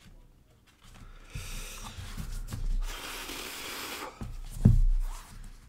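Sketchbook paper pages rustling as they are leafed through, then a single thump about three-quarters of the way through as the pages are laid down flat.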